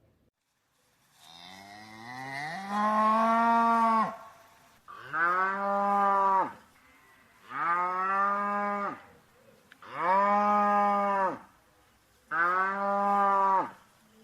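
A cow mooing five times, each a long low call that rises at the start and falls off at the end; the first builds slowly and is the longest.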